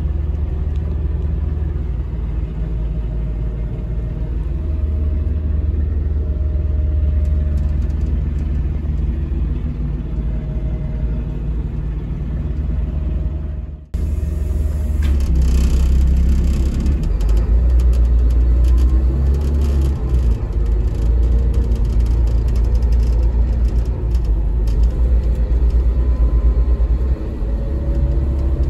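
Cabin noise aboard a Denning Phoenix low-floor bus with a Caterpillar diesel engine: a steady low engine rumble under road noise. It breaks off for an instant about halfway through and comes back a little louder, with the engine note rising and falling.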